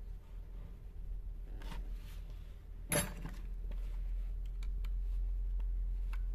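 Hands working a rubber seal into its groove on a chainsaw's plastic-and-metal housing: faint rubbing and small clicks, with one sharp knock about three seconds in, over a steady low hum.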